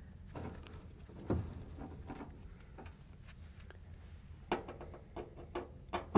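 Hand nut driver backing screws out of a dryer's sheet-metal bulkhead: faint scrapes and light metal clicks, a louder knock about a second in, and a quick run of clicks near the end.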